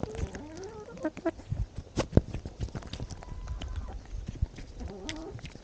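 Chickens feeding right at the microphone, their beaks giving many sharp pecking taps and knocks. Short clucking calls come in the first second or so and again near the end.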